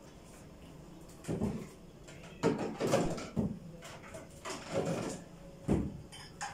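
Wooden kitchen drawer being pulled open and handled, a series of knocks and scrapes over about four seconds.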